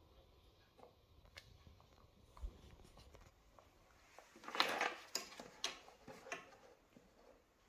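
Faint, scattered taps and clicks of a baby's fingers and blueberries on a plastic high-chair tray, with a brief louder rustling noise about four and a half seconds in and a few sharper clicks after it.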